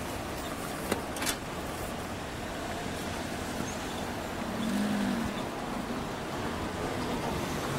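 Steady engine noise, with two sharp knocks about a second in and a hum that rises and falls about five seconds in.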